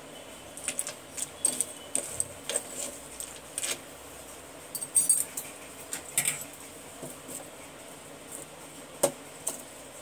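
Pieces of slate pencil clinking against each other and a metal spoon as they are stirred in a coconut shell: scattered sharp clicks and clinks, loudest about five seconds in.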